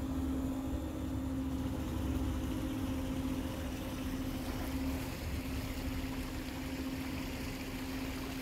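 Chair lift running: a steady mechanical hum holding one pitch over an uneven low rumble.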